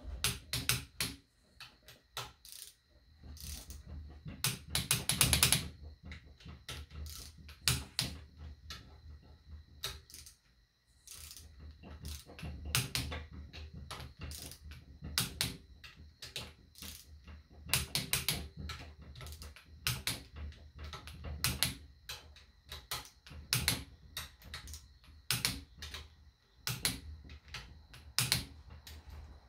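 Torque wrench ratchet clicking as the harmonic damper bolts on a Gen 3 Hemi are tightened. There are quick runs of clicks, the densest about five seconds in, with single clicks and short runs between.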